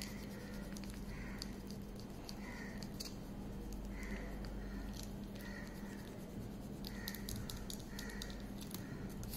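Faint scratching and ticking of a pen and eraser working on paper, over a steady low hum.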